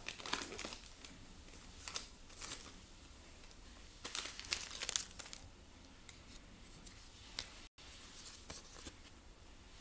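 A Pokémon booster pack's foil wrapper being torn open and crinkled by hand, in several short bursts, the longest and loudest about four to five seconds in.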